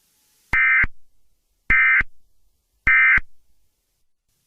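Emergency Alert System end-of-message (EOM) signal: three short bursts of SAME digital data tones, a little over a second apart, marking the end of the alert broadcast.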